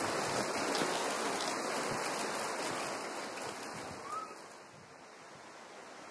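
Steady rushing noise of running water, dropping in level about four and a half seconds in, with one short rising chirp just before the drop.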